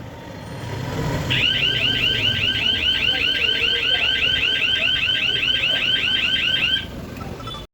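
Electronic siren of a shop-shutter vibration alarm sounding a fast warble of falling chirps, about five or six a second, starting about a second in and stopping shortly before the end. Under it runs a low rumble. This is the alarm meant to go off when someone tries to cut the shutter with a gas torch.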